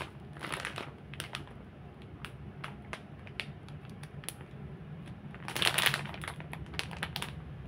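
Clear plastic snack package crinkling and crackling as it is handled and turned over, with a louder burst of rustling about two thirds of the way in.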